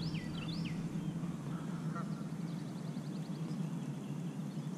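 Lawnmower engine running steadily, an even low drone. A few short high chirps sound near the start, and a quick, rapid high trill comes about halfway through.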